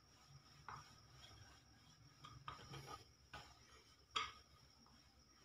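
Faint rubbing and a few light knocks of a wooden rolling pin rolling out dough on a floured wooden board, the loudest knock about four seconds in.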